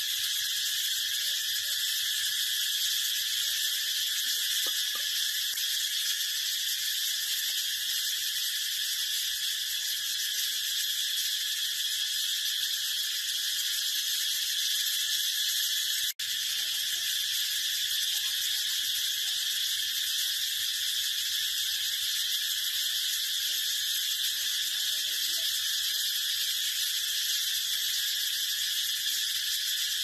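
Brown cicada singing: a steady, shrill, high-pitched buzz that drops out for an instant about halfway through.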